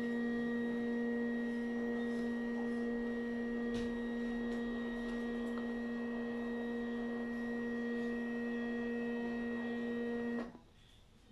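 Steady background hum: a constant drone with a clear pitch and overtones, which cuts off suddenly near the end. A single faint click about four seconds in.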